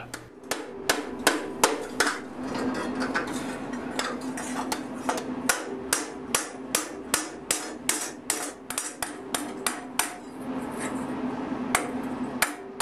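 Round-faced hammer striking a hot steel sheet over a heavy chain link held in a vise, sinking it into a ladle bowl: steady blows about three a second, pausing about ten seconds in before a couple more strikes. A steady low hum runs underneath.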